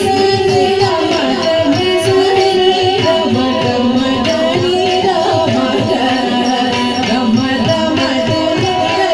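Carnatic music accompanying Bharatanatyam dance: a voice sings a melodic line over a continuous pattern of hand-drum strokes.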